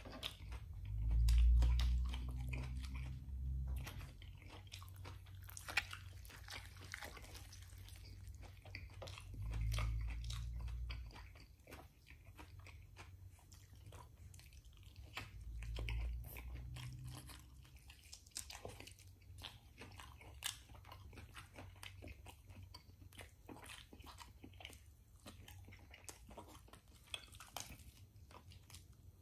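Close-miked chewing and biting of rotisserie chicken, with many small wet mouth clicks and smacks. There are three low rumbles, the loudest about a second in.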